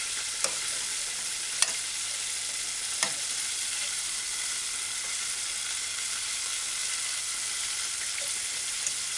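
A fork stirring cooked rice and peas in an aluminium saucepan, clicking lightly against the pan three times in the first few seconds, over a steady high hiss.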